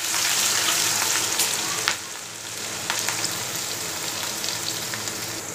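Ginger-garlic paste, mustard seeds and cumin frying in hot oil in a steel kadhai: a loud sizzle that drops back after about two seconds and carries on more quietly, with a few clicks of a steel spatula against the pan as it is stirred.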